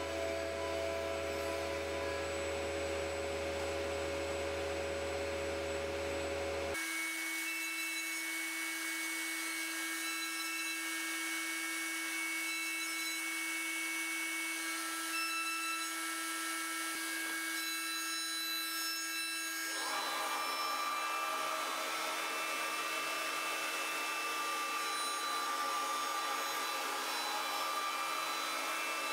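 SCM Morbidelli N100 CNC router machining MDF, its spindle running with a steady whine over a noise of cutting and dust extraction. The sound changes abruptly about a quarter of the way in and again about two-thirds in.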